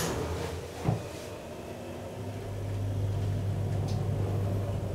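Schindler hydraulic elevator: a single thump about a second in, then the hydraulic power unit's motor starts up with a steady low hum as the car moves.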